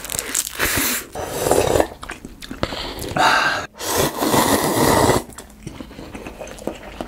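Close-miked eating: bites and chewing on a seaweed-wrapped rice snack, then loud noisy slurping of cup noodles from about three to five seconds in, followed by quieter chewing.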